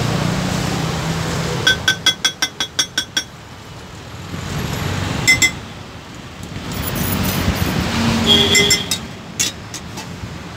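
A quick run of about nine ringing metallic clinks, a steel cooking utensil tapped against steel cookware at a dosa griddle. A single clink and then a second cluster of clinks follow later. Underneath is steady background noise, with a low hum at the start.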